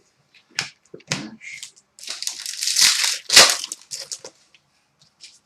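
Trading cards being handled: a few sharp card flicks, then a crinkly rustle of cards and wrapper lasting about a second and a half, then more small clicks.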